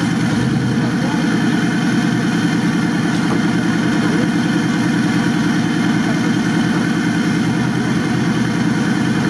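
Off-road prototype buggy's engine idling steadily at close range.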